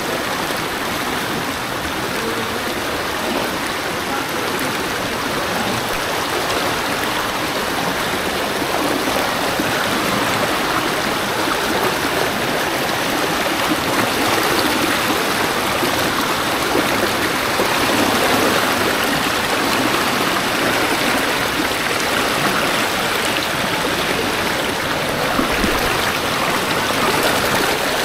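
Fast-flowing floodwater rushing and churning along a street and through a narrow channel: a loud, steady rush that grows a little louder partway through.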